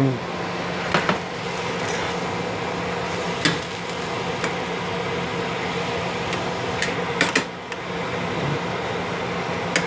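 Steak juices sizzling and bubbling as they reduce in a stainless steel frying pan, with a few sharp clicks of metal tongs against the pan as the steak is moved around. A steady low hum runs underneath.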